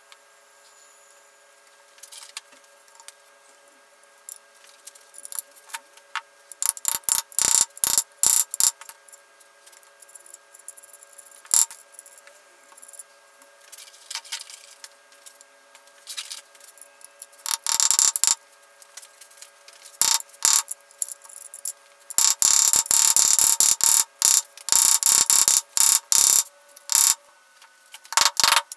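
Irregular bursts of sharp clicking and scratchy rattling from hands working small tools and hardware on a solid wooden guitar body, over a faint steady hum. The loudest clusters come about a third of the way in and through the last few seconds.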